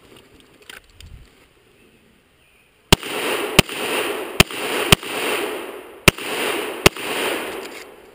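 Six pistol shots fired at an uneven pace over about four seconds, starting about three seconds in, with a loud rushing wash of noise lingering between them.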